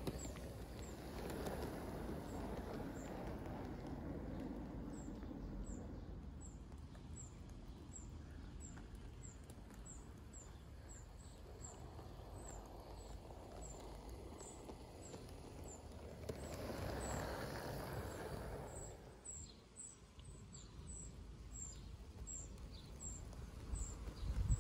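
A Bachmann Class 47 model diesel locomotive running along garden railway track, its low rumble swelling twice as it passes close. A bird repeats a short, high chirp about twice a second.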